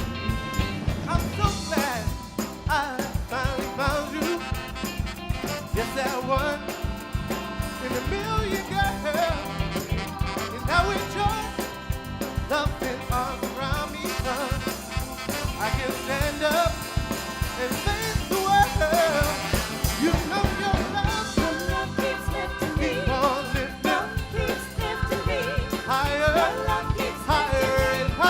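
A live band playing an instrumental passage with a steady drum beat and moving melodic lead lines.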